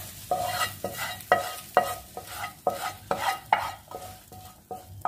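Wooden spatula scraping and knocking masala out of a kadai into a metal pressure cooker. It makes a quick run of knocks, about two or three a second, and the metal rings briefly after each one.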